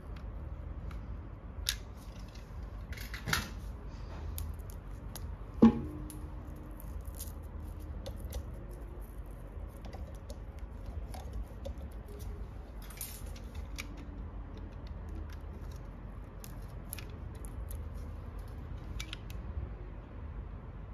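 Utility knife blade cutting and scraping the plastic jacket of a thin coaxial cable, with small ticks and scrapes from the work and a sharp click about five and a half seconds in.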